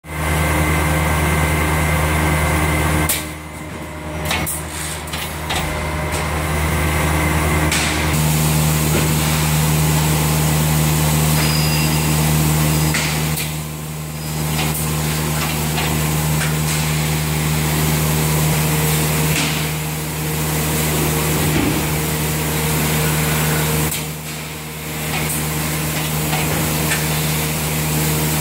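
An industrial thermoforming machine running: a steady low hum under a wash of mechanical noise, with clusters of clicks and knocks and brief drops in level every several seconds as its stations move.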